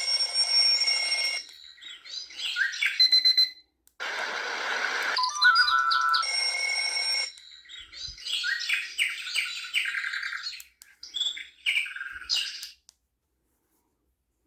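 A digital alarm clock's built-in alarm sounds playing through its small speaker one after another. First a steady electronic tone, then birdsong chirps, a stretch of even noise, a tone again, and more birdsong. It stops about 13 seconds in.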